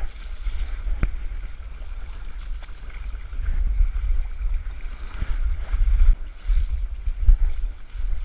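Wind buffeting the microphone in a gusty rumble, over the rush of a shallow river. A light knock comes about a second in.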